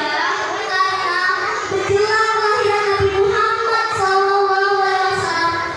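A young girl singing into a handheld microphone: a slow melody with long held notes.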